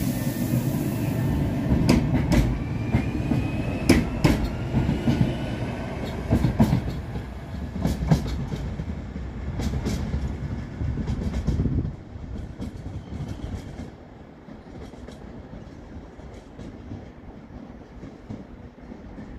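An Alstom Citadis Dualis tram-train on line T11 pulls away: a rising motor whine, a heavy rolling rumble, and a string of clacks as the wheels cross rail joints and points. About twelve seconds in the rumble drops off sharply and the tram fades as it recedes.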